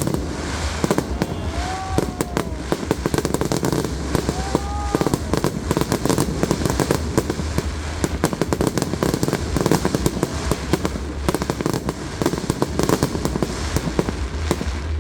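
Fireworks display: a dense, continuous crackle and popping of many shells bursting at once, over a low rumble.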